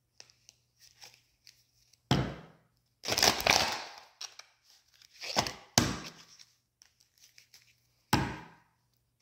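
Tarot cards being shuffled and handled: four short rustling swishes with light taps between them, the longest about three seconds in.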